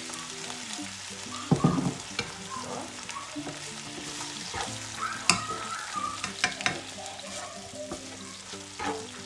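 Sweetcorn, garlic and ginger frying in olive oil in a pan and being stirred: a steady sizzle broken by scrapes and knocks of the utensil against the pan. The loudest knock comes about a second and a half in, with a sharp clack near the middle. Soft background music with held notes runs underneath.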